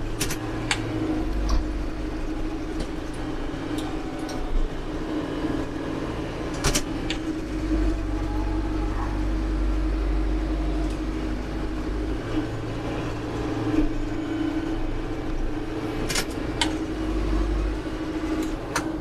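Branson compact tractor's diesel engine running steadily while its front-loader grapple handles an oak root ball, with a few sharp knocks along the way.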